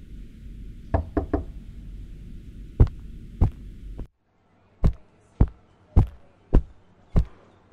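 Knocking: three quick raps about a second in, then two single knocks over a low hum. When the hum cuts off, evenly spaced single knocks follow, about one every 0.6 seconds.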